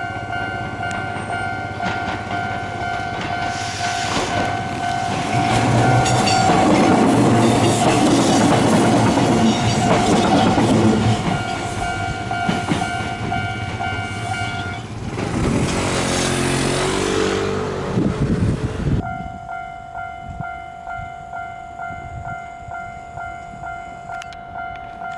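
Japanese level-crossing warning bell ringing steadily while an electric train runs over the crossing, its wheels clattering over the rail joints. The train drowns the bell out through the middle, and the bell then rings on clearly with its regular strokes near the end.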